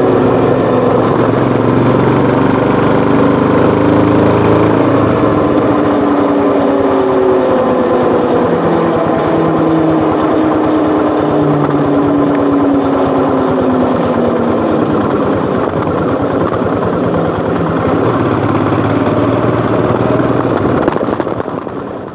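Royal Enfield Himalayan BS6's 411 cc single-cylinder engine and exhaust running under way. About five seconds in the engine note drops, then falls slowly for several seconds as the rider eases off. It then holds steady and fades out near the end.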